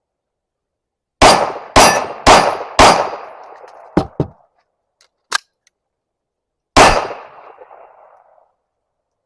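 Springfield Echelon 9mm pistol with a Patriot CNC compensator firing a fast string of four shots about half a second apart, then a couple of lighter metallic clinks, then a single fifth shot a few seconds later.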